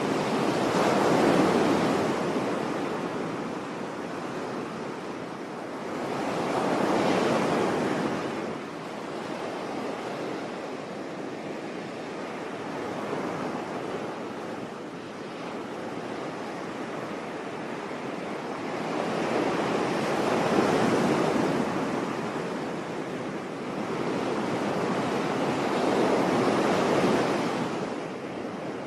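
Sea surf: waves breaking and washing on a beach, four swells rising and falling, with a calmer lull in the middle.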